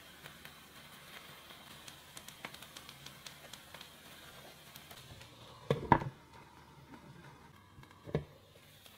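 Light ticks and patter of shredded mozzarella sprinkled onto a pancake in a frying pan, then knocks as a glass lid goes onto the pan, the loudest about six seconds in and a smaller one about two seconds later.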